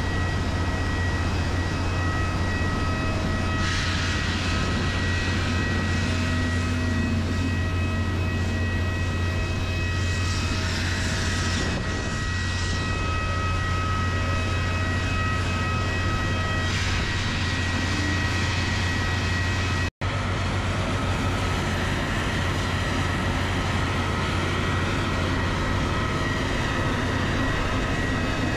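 Steady machinery noise on an airport apron beside a parked airliner: a constant low engine hum with steady high whining tones. A rushing noise swells up three times, and the sound drops out for an instant about two-thirds through.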